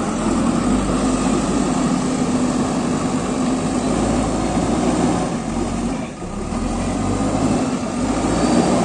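JCB 3DX backhoe loader's diesel engine running steadily, with a brief dip in level about six seconds in.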